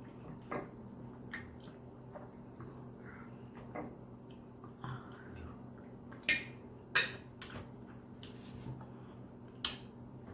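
Sounds of someone eating steak: a scattered run of sharp clicks and smacks, the loudest about six and seven seconds in and again near the end, over a faint steady low hum.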